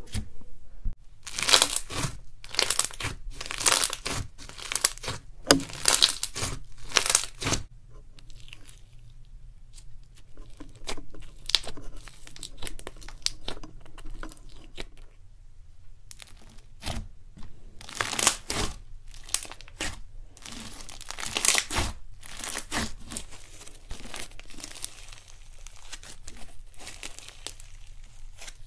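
Hands pressing, poking and stretching thick slime, giving crackly, tearing sounds. They come in two runs of quick bursts, the second starting about halfway through, with softer sticky crackles between.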